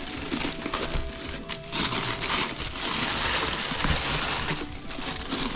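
Packaging wrap crinkling and rustling as it is handled and pulled off a collectible helmet, with brief pauses twice.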